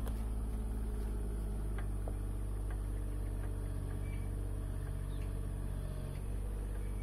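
Mini excavator's engine running steadily, with a brief dip in its note about six seconds in.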